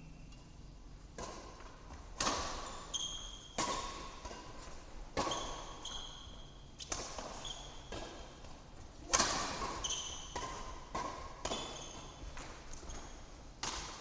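Badminton rally: rackets striking the shuttlecock back and forth, about nine sharp hits one to two seconds apart, echoing in a large hall. Several hits are followed by a brief high ringing.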